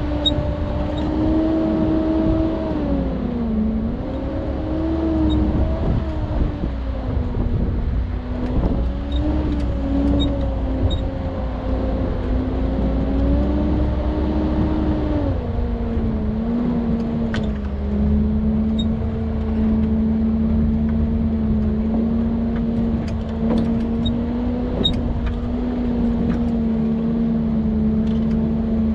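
Land Rover Discovery 2 engine running as it drives a dirt trail, its pitch rising and falling with the throttle, then dropping about fifteen seconds in and holding steadier and lower. A few light clicks and rattles come over it.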